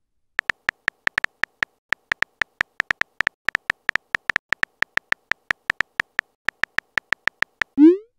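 Rapid on-screen keyboard tap clicks of a texting-story app as a message is typed, about six a second, ending in a short rising whoosh as the message is sent.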